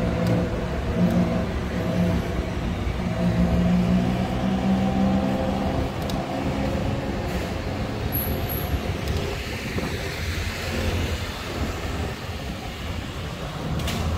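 Street traffic: a motor vehicle's engine runs close by for the first several seconds and then fades, and another vehicle seems to pass about ten seconds in.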